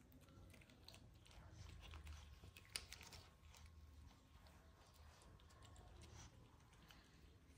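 Faint, irregular wet clicks of a kitten licking lickable cat treat from a squeeze tube, with one sharper click near the middle.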